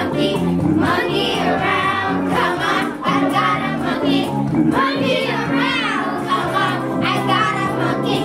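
A group of children singing a musical-theatre song together over an instrumental accompaniment.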